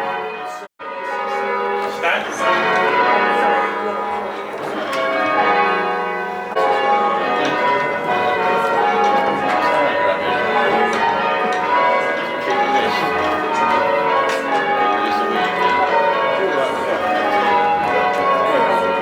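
Bells being change-rung: a continuous run of bells struck one after another. It drops out briefly under a second in.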